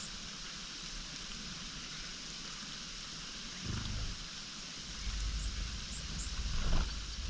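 Steady outdoor hiss with low rumbling swells that come in after a few seconds, the loudest near the end, and a few faint, very short high bird chips.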